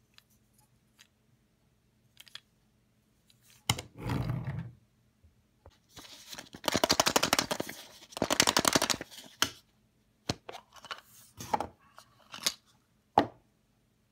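A plastic surprise egg with a toy train inside being handled and opened: scattered plastic clicks, a dull thump about four seconds in, and two spells of fast rattling around the middle.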